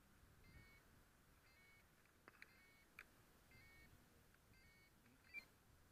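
Faint, short electronic beeps, each a quick two-step tone, repeating about once a second from the FPV quadcopter's electronics while it sits idle with its motors stopped. A few faint clicks come in between.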